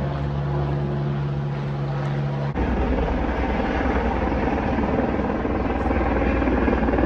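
Steady engine drone with a low hum. About two and a half seconds in it changes abruptly to a louder, rougher drone.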